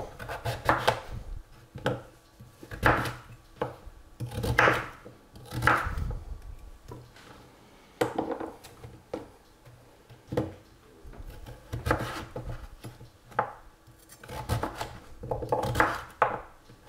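Chef's knife cutting peeled sweet potatoes into chunks on a wooden cutting board: a series of slicing strokes, each ending in a sharp knock of the blade on the board, at about one a second.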